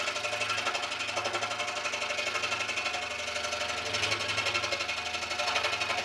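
Scroll saw running steadily with a fine number 7 blade, its rapid reciprocating strokes cutting notches into the workpiece.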